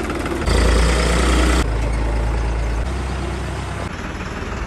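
New Holland 5620 tractor's diesel engine running as the tractor moves off towing a laser land leveller, with sudden jumps in loudness about half a second in and again shortly after.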